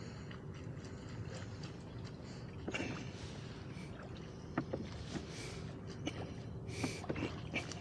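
Small waves slapping and splashing against the hull of a small boat, with short splashes and knocks scattered through, over a steady low rumble of wind.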